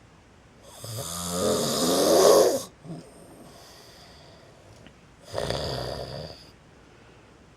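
A man snoring: two snores. The first is loud, about two seconds long, and rises in pitch as it grows louder; a shorter, quieter one follows about five seconds in.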